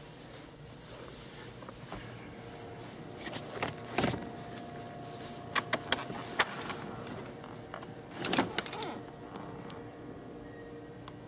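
Rustling and sharp clicks and knocks of movement inside a car's cabin: a cluster about four seconds in, four or five quick clicks a little after, and a rustle near the end, over a faint steady hum.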